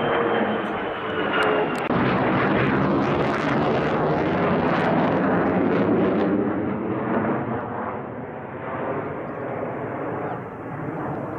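Military jet engine noise from an aircraft passing: a loud steady rush with a high whine falling in pitch over the first two seconds, easing off toward the end.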